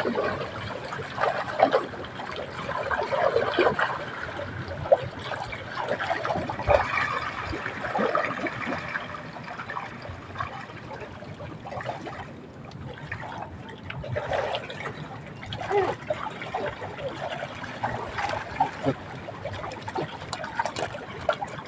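Water splashing and trickling, with irregular small splashes and knocks.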